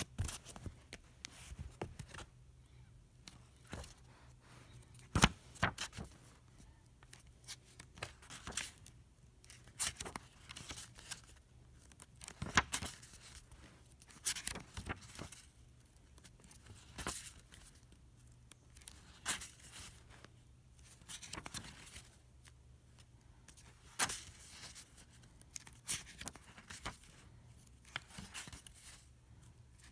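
Stiff paper pages of an autograph book turned and handled by hand: paper rustling, with sharp crackles and snaps every second or two, the loudest about five seconds in.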